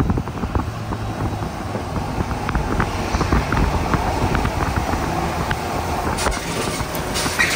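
Road traffic heard from a moving vehicle: a steady low engine and tyre rumble, with a couple of short hissing noises near the end.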